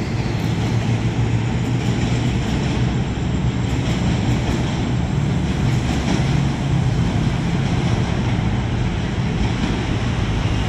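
Passenger-style train carriages running along the track as the train pulls away: a steady rumble of wheels on rails over a low hum.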